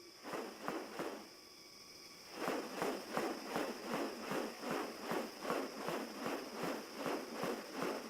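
Steady high-pitched insect drone, with a regular series of sharp rasping or clicking pulses, about two and a half a second, that starts a couple of seconds in.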